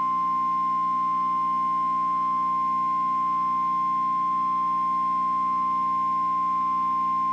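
NOAA Weather Radio's 1050 Hz warning alarm tone: a single steady, unbroken beep that signals a weather warning is about to be broadcast.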